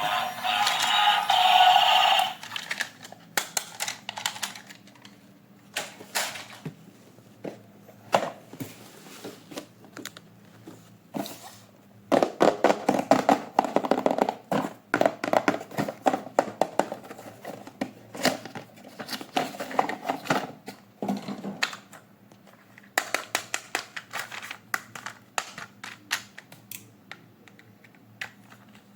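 Plastic toys and packaging being handled: a long run of light clicks, taps and rattles, densest in the middle stretch and again shortly before the end, after music fades out in the first couple of seconds.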